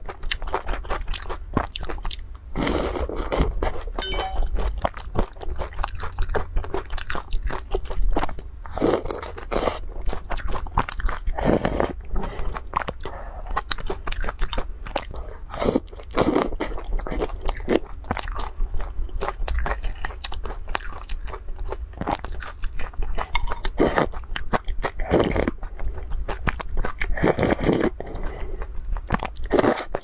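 Close-miked eating of noodle soup: steady wet chewing and mouth clicks, broken several times by longer slurps as noodles are drawn in.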